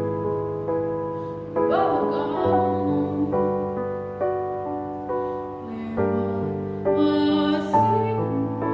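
Piano accompaniment playing a slow run of chords, each one struck and left to ring and fade. A voice briefly holds a wavering sung note about two seconds in.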